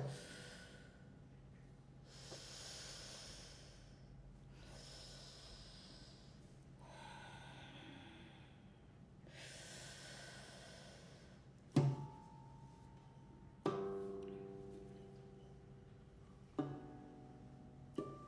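Four long, soft, breathy hisses, like whispered exhalations, each lasting a couple of seconds. From about two-thirds of the way in, single plucked lute notes and chords ring out one at a time, four of them a second or two apart, each fading away. A sharp pluck opens the passage.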